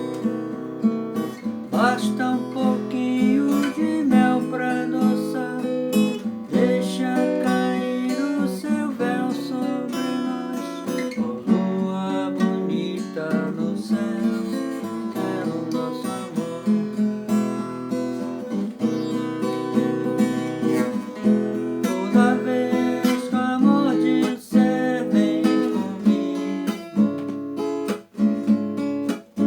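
Acoustic guitar playing a song, its chords plucked and strummed with a steady run of notes.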